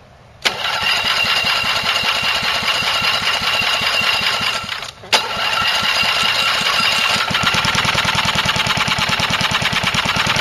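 1981 Whirlwind lawnmower engine running on hydrogen gas fed into its air intake. It catches suddenly about half a second in and runs fast and steady. About five seconds in it briefly falters and almost dies, then picks back up.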